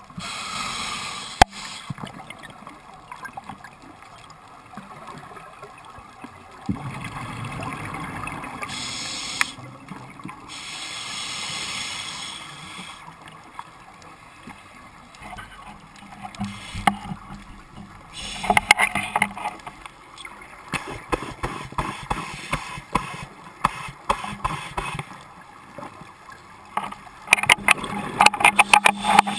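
Scuba diver breathing underwater through a regulator: a hiss on each inhalation, then a crackling, gurgling rush of exhaled bubbles, repeating over several slow breaths.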